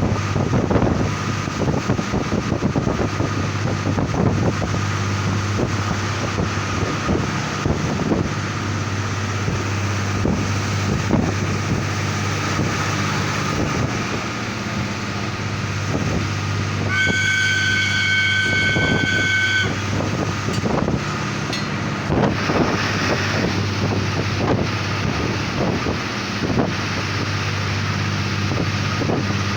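Narrow-gauge diesel railcar running along the track, heard from an open window: a steady engine drone with a faint whine, wheels knocking over rail joints, and wind on the microphone. Past the middle a high steady tone sounds for about three seconds.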